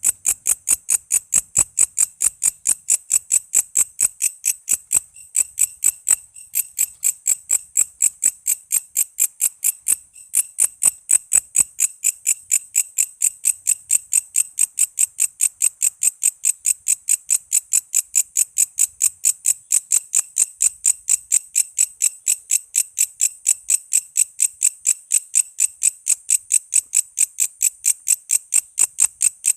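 Walang kece, a katydid, calling: a steady run of short, high-pitched chirps, about four a second, with a few brief breaks.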